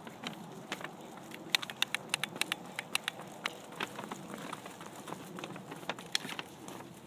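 A chihuahua's paws and claws tapping as she walks, with quick, irregular clicks several times a second.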